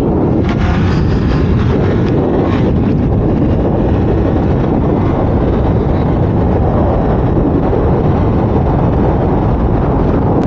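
Wind rushing over the camera microphone, with the KTM Duke 390's single-cylinder engine running underneath as the motorcycle accelerates up to road speed.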